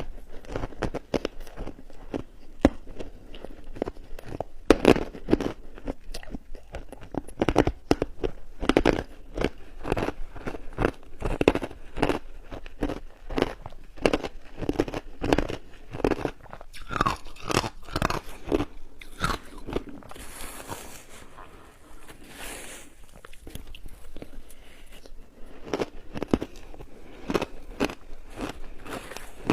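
A person biting and chewing crunchy shaved ice in big bites, a rapid run of loud crunches and crackles. There is a quieter stretch of softer chewing about two-thirds of the way through.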